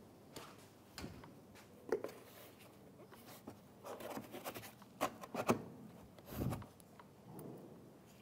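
Foam bumper absorber being handled and seated against the plastic bumper cover: faint rubbing with scattered light clicks and knocks, and a duller bump near the end.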